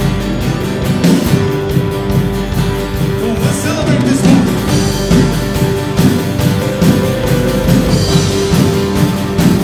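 Live worship band playing a song with a steady beat: acoustic guitar, electric guitars and keyboard.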